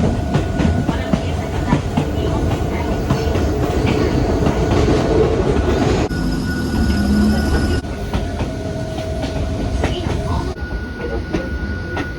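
Old Hakone Tozan Railway electric car running: a steady rumble of wheels on rail with frequent clicks and clatter, and a faint steady whine.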